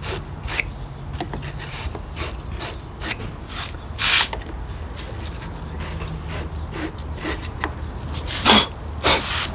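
Car battery post being scraped clean with a hand tool: irregular short rasping strokes of metal rubbing on lead, with a couple of louder strokes about four seconds in and near the end.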